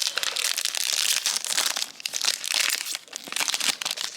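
Foil booster pack wrappers crinkling as trading card packs are handled and opened: a dense, continuous run of crackles.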